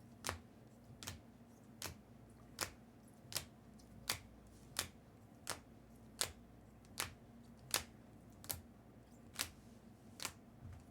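Trading cards being flicked down one at a time onto a pile, a short sharp click about every three quarters of a second at a steady pace.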